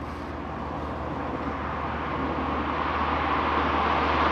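1985 Renault 5 Turbo 2's mid-mounted 1.4-litre engine and tyres as the car approaches under way, growing steadily louder.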